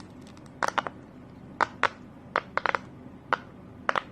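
Silicone pop-it fidget toy being pressed, its bubbles popping in about a dozen short, sharp pops at an uneven pace, some in quick runs of two or three.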